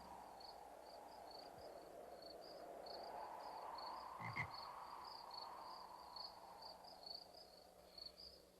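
Faint crickets chirping: short high chirps repeating about three times a second, barely above silence. A brief soft knock about four and a half seconds in is the loudest sound.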